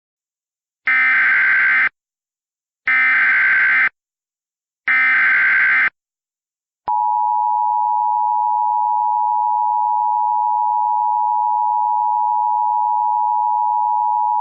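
Emergency Alert System tones: the SAME digital header sounds as three one-second bursts of harsh data screech, each about two seconds after the last. About seven seconds in, the steady two-tone EAS attention signal begins and holds. Together they announce an incoming emergency alert, here a flash flood warning.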